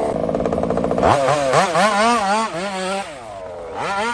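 Petrol RC car's small two-stroke engine idling, then revved in quick throttle blips from about a second in, its pitch rising and falling several times before dropping back, and revved again near the end.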